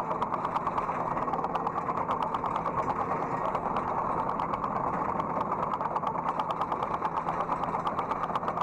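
Hydraulic excavator's diesel engine running steadily, heard from the operator's seat, with a fast, even ticking clatter over it.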